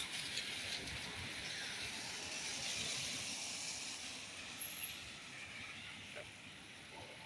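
A road vehicle going past on a wet road, its tyre hiss fading away over the last few seconds, with two short knocks a little after halfway.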